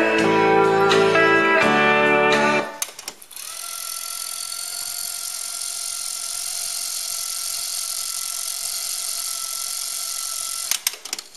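Country music with guitar plays from a cassette on a Bang & Olufsen Beocord 5500 and cuts off suddenly about three seconds in. A steady whirring hiss with a faint whine follows, the deck winding the tape at speed. It ends in a few sharp clicks near the end.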